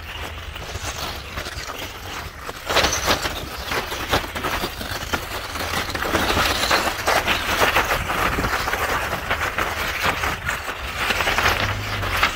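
Toyota Land Cruiser 80 series tyres crawling over loose, broken rock: a continuous crunching and grinding with many sharp cracks and clatters of stones shifting under the tread, over a steady low rumble. It grows louder from about six seconds in.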